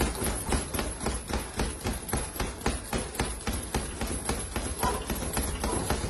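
Boxing gloves punching a Ringside heavy bag in a fast, steady run of strikes, several a second.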